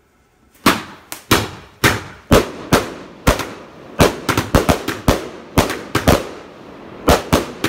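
God of Thunder firework cake from Cosmic firing shot after shot: a rapid run of sharp, loud bangs, about three a second, starting under a second in, with a brief pause near the end before a few more.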